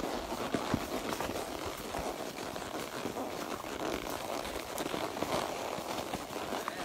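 Dense, steady crackling rustle with many small ticks, like brush and branches scraping past a rider and horse pushing through thick growth.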